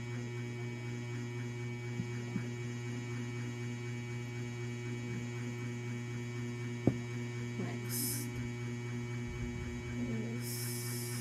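Steady electrical mains hum, with a few small clicks from handling a plastic syringe and a glass vial; the sharpest click comes about seven seconds in. Two brief hisses come near the end.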